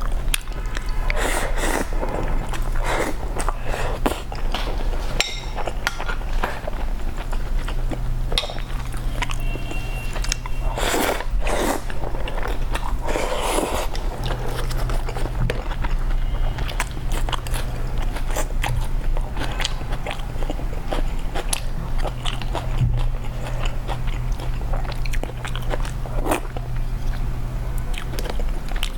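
A person biting and chewing food: irregular sharp bites and chewing noises throughout, louder in a few spells, over a steady low hum.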